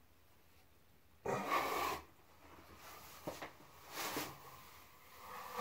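Drywall knife scraping wet joint compound across a ceiling in two short strokes, with a couple of light clicks between them.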